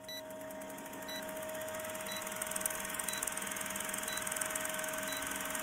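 Old-film countdown sound effect: a film projector's steady whirring rattle with a hum, and a short high beep once a second as the numbers count down.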